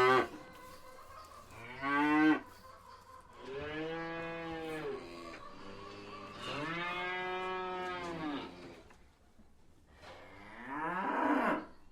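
Cows mooing: four calls a second or so apart, a short one, two long drawn-out ones, and a last one rising in pitch near the end.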